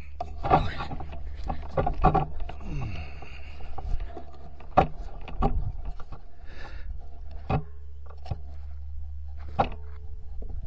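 Scattered knocks, clicks and scraping from a scoped rifle being handled and shifted onto a shooting position, over a steady low hum.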